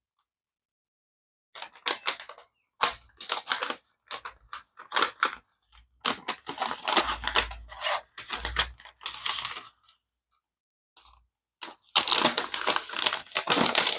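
A plastic bag crinkling and small kit pieces clicking as they are handled, in several bursts separated by short silent pauses.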